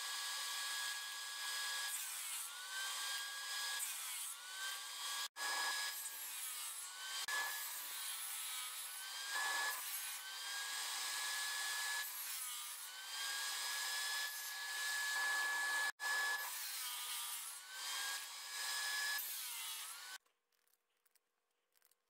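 CNC spindle whining steadily as an end mill cuts parallel slots across an aluminium heatsink profile, its pitch dipping again and again as the bit bites into the metal and recovering between passes. It breaks off briefly twice and stops abruptly near the end.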